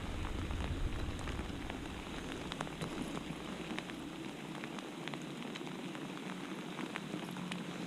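Heavy rain falling on the water: a steady hiss dotted with many sharp drop ticks, with a low rumble during the first couple of seconds.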